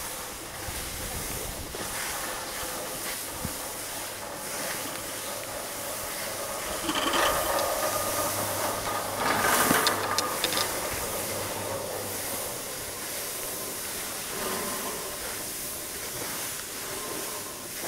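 Skis hissing and scraping over packed snow while being towed up a T-bar ski lift, with a rougher, louder stretch in the middle and a few sharp clicks about ten seconds in.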